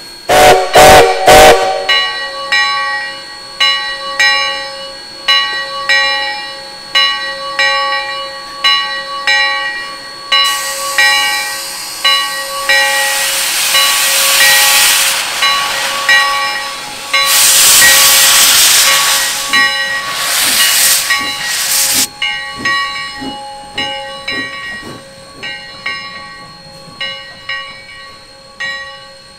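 Sierra Railway No. 3, a 4-6-0 steam locomotive, sounds a few short blasts on its steam whistle. Its bell then rings steadily, about one and a half strokes a second. Steam hisses hard from the cylinder cocks as it starts off, chuffing for a few seconds, and the bell fades as the engine moves away.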